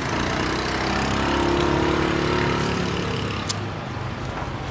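A motorbike engine running as it passes close by, growing louder to a peak about two seconds in and then fading away. There is a single sharp click shortly before the end.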